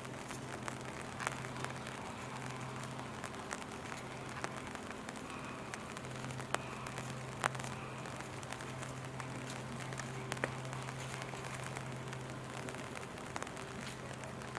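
Steady rain falling, with scattered sharp ticks of individual drops striking close by, over a low steady hum.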